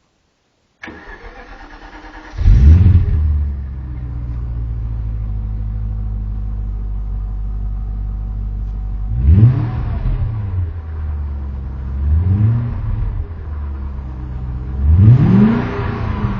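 BMW E38 740i V8 with a FOX aftermarket exhaust being started: the starter cranks for about a second and a half, the engine catches with a loud flare, settles to a steady idle, then is revved briefly three times.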